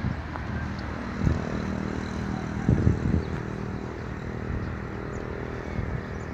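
Motor vehicle engine running, a low steady hum of street traffic with a couple of louder swells.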